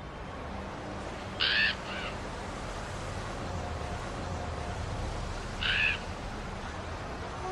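A corvid calling twice, about four seconds apart. Each call is short, and the first has a fainter repeat just after it. Both sound over a steady low background rumble.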